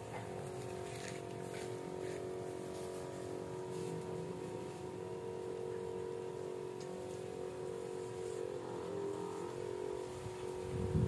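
Battery-powered knapsack sprayer's pump motor running with a steady hum while spraying, over a faint rustle of foliage. A brief low thump near the end.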